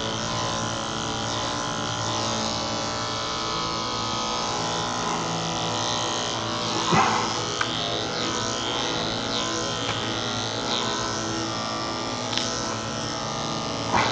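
Cordless electric dog clipper running steadily as it trims a cocker spaniel's coat, with a short knock about seven seconds in.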